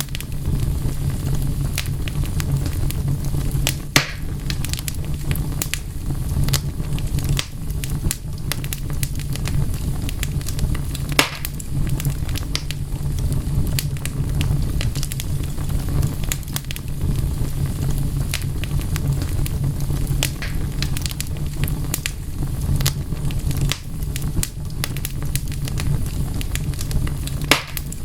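Wood fire burning with a steady low rumble and frequent crackles, and a few louder pops: about 4 seconds in, around 11 seconds, and near the end.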